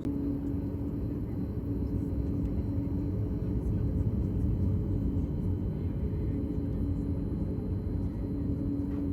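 Cabin noise of a Boeing 737-8 MAX taxiing: a steady low rumble from its CFM LEAP-1B engines and airframe, with a constant hum over it.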